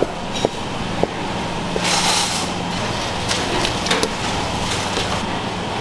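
Three chops of a kitchen knife through folded dough onto a wooden cutting board, cutting kalguksu noodles, in the first second. Then the steady rushing of a large pot of water at a rolling boil on a gas burner, over a low hum.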